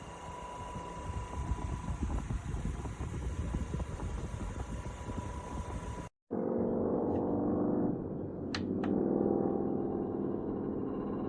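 Small portable cooling fan running steadily, with a rough rush of air at first; after a cut it runs with a smoother hum, and two quick clicks come close together just past the middle.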